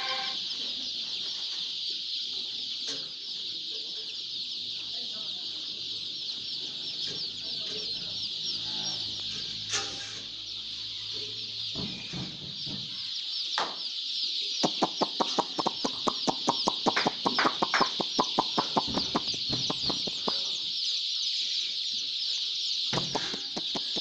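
A large flock of young chicks peeping continuously, many high-pitched chirps overlapping into one steady chorus. From about midway, a rapid run of sharp clicks or taps rattles over it for several seconds.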